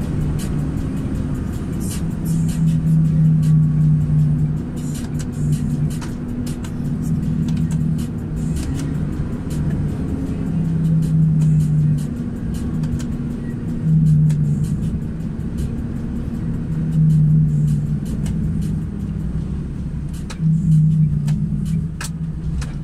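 Heavy truck's diesel engine running at low speed, heard from inside the cab, with a low hum that swells and fades every few seconds and light clicks and rattles throughout.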